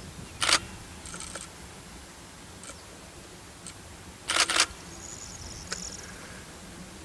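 Two short, sharp clicking bursts, one about half a second in and a louder double one about four seconds later, with a few faint clicks between, over quiet outdoor background noise.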